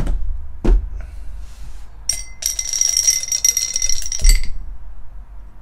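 An eight-sided die shaken in a clear cup: a rapid, ringing rattle for about two seconds, ending in a thump as the cup comes down. A single knock comes earlier, near the start.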